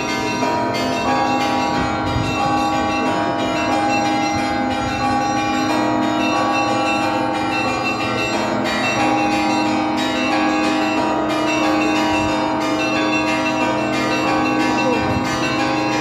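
Church bells of St. Isaac's Cathedral ringing a continuous peal: several bells struck in quick succession, their tones overlapping and ringing on without a break.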